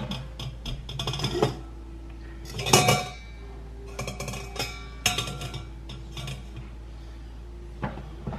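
Metal ladle clinking and scraping against a stainless steel bowl, strainer and slow-cooker crock while broth is ladled out and strained, in several irregular clusters of clatter with the loudest about three seconds in.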